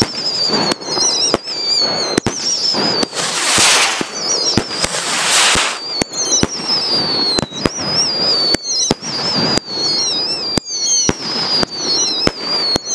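Fireworks going off: several wavering whistles that slide down in pitch, many sharp bangs and cracks, and a dense hiss about three seconds in that lasts around three seconds.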